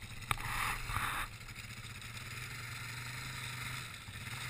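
Yamaha Warrior ATV's single-cylinder engine running steadily at low speed as the quad crawls over rough ground, with a sharp click and a short rushing noise about half a second in.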